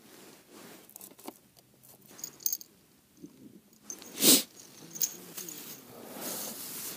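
Small clicks and clothing rustles as hands set an ice-fishing tip-up, with one loud rustle about four seconds in as the angler straightens up.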